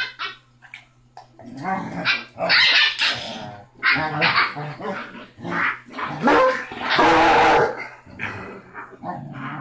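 Six-week-old basset hound puppy barking and growling in a run of short loud bursts after a quiet first second, with one longer, harsher growl about seven seconds in.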